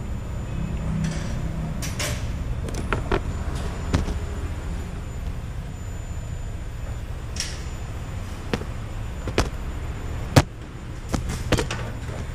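Handling noise around a partly dismantled scooter engine: about ten scattered sharp clicks and knocks, the loudest about ten seconds in, over a steady low hum.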